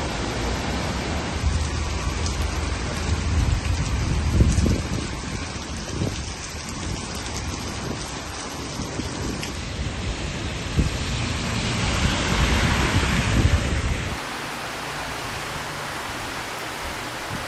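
Heavy rain pouring down in a thunderstorm, a steady dense hiss with deep rumbles swelling a few seconds in and again about twelve seconds in. About fourteen seconds in the sound changes abruptly to a thinner rain hiss without the rumble.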